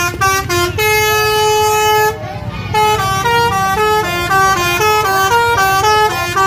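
A bus's multi-tone 'telolet basuri' musical horn playing a tune, loud, with a low engine rumble underneath. It sounds a few short notes, holds one long note for about a second, pauses briefly, then runs through quick changing notes, about three a second.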